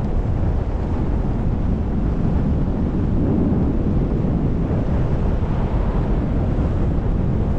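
Wind rushing over the microphone of a camera on a paraglider in flight: a steady low rumble that swells a little midway.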